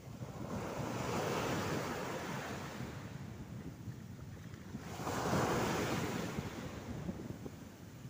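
Small surf waves breaking and washing up a sandy beach, a steady wash that swells twice, about a second in and again around five seconds in.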